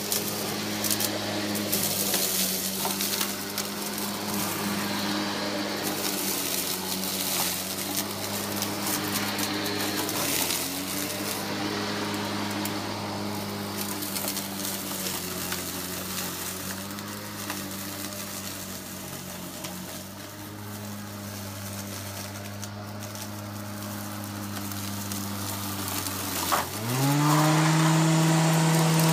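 Sun Joe MJ401C 28-volt cordless lawn mower's electric motor running with a steady hum over a hiss. The pitch sags a little now and then, and near the end the motor speeds up to a clearly higher, louder pitch.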